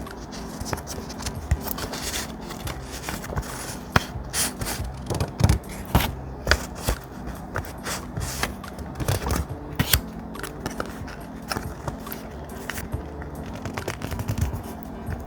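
Thick paper handled close to the microphone: irregular crisp rustles, scrapes and snips, like scissors cutting paper.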